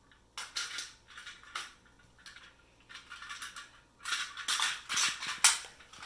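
Hard plastic toy train track pieces and toy train cars clattering and rattling as they are handled, in irregular clicks and rattles that get busier and louder over the last two seconds.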